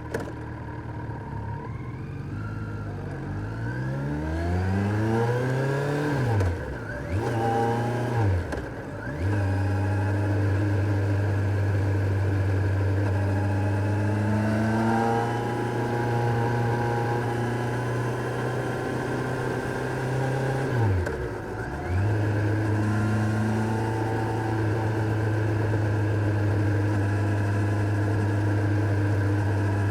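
Kawasaki Z900's inline-four engine pulling up through the revs, briefly dropping at gear changes about six and eight seconds in, then holding a steady note at cruising speed, with one more quick dip and recovery about twenty-one seconds in.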